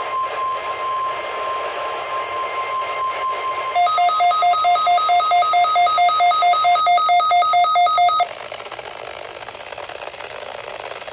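Electronic alert tones: a steady single high tone for about four seconds, then a louder two-note electronic alarm beeping about four times a second for about four seconds. It cuts off sharply, leaving radio static.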